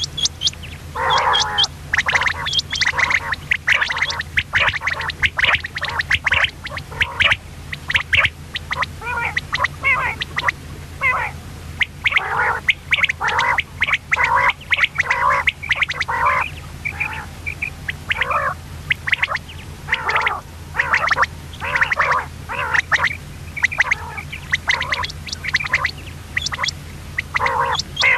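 Common quail calling: a continuous, rapid run of short chattering notes, several a second, over a steady low hum.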